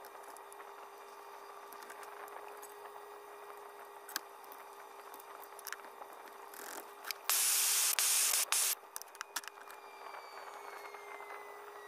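Light clicks and knocks of handling metal parts, then a loud hiss of spray lasting about a second and a half, about seven seconds in.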